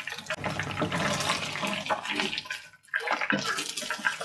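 Chicken pieces deep-frying in hot sunflower oil: a steady sizzle full of small crackles, with a brief break about three seconds in.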